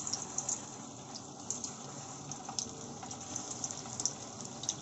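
Paneer-and-potato koftas deep-frying in hot oil in a steel pot: a steady sizzle with sharp crackles and pops scattered throughout.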